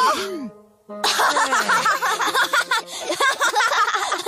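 Children giggling and snickering in rapid, wavering bursts, after a short vocal exclamation at the start and a brief pause.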